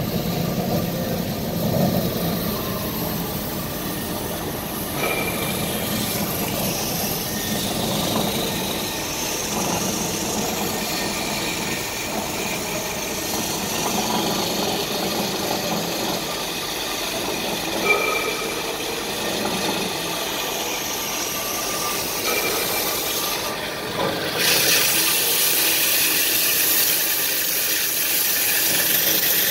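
Uzay 420 metal-cutting band saw running, with its blade cutting into a metal pipe under flowing coolant: a steady machine noise with a faint whine. The noise grows louder and hissier about 24 seconds in.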